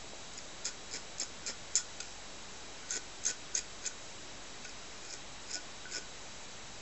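Grooming scissors snipping through a Shih Tzu's long coat: about a dozen quick, crisp snips in three short runs, a few per second.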